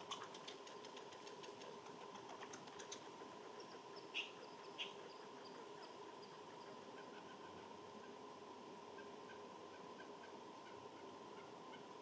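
Faint animal calls: a fast rattle of clicks, then two short sharp chirps about four seconds in, followed by a run of faint high peeps.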